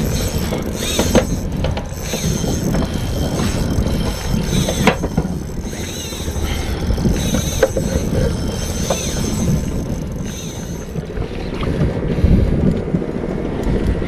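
Wind on the microphone and water moving around a small boat, with a spinning reel being cranked now and then as a fish pulls on the bent rod.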